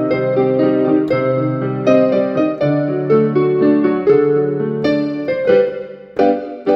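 Digital piano played in a slow, chordal style: full chords held over sustained bass notes, thinning to lighter, sparser notes near the end.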